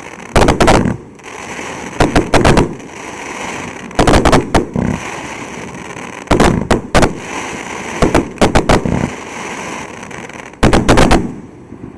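Firework cake (multi-shot repeater) firing in volleys: a quick cluster of three to five loud bangs about every two seconds, with a hiss between the volleys.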